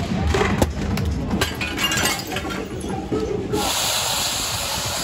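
Street-clash noise: a quick run of sharp clinks and knocks, like hard objects hitting and breaking, with voices among them. About three and a half seconds in, it cuts to a steadier, hissy street noise.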